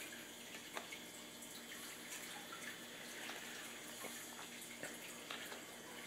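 Faint soft rustles and small taps as pieces of soaked corrugated cardboard are handled and laid down in a plastic tub, a few scattered ticks over a steady low hiss.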